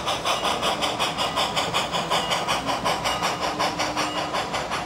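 Large-scale model steam train running past: an even, rapid chuffing rhythm, about four pulses a second, over a steady hiss and the rolling of the coaches' wheels on the track.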